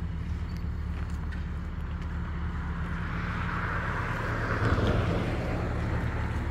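A vehicle engine idling with a steady low hum, while a rush of noise swells and fades about four to five seconds in.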